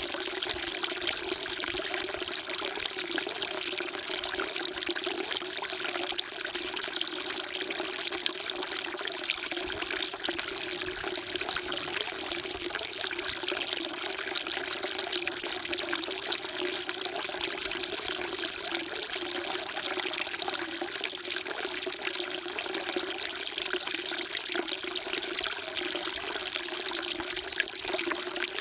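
Water pouring in a steady stream into a stone water trough (sugak), splashing without a break.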